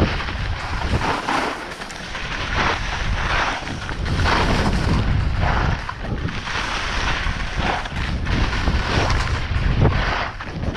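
Skis scraping and hissing over firm snow in a run of turns, each turn bringing a louder swell of edge scrape, with wind buffeting the microphone underneath.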